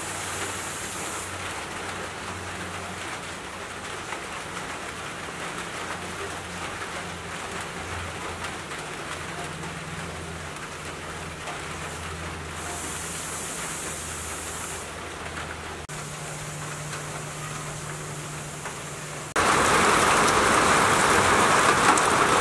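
Steady rain falling on leaves and plants, a continuous even hiss with a faint low hum underneath. Near the end the rain suddenly gets louder and heavier.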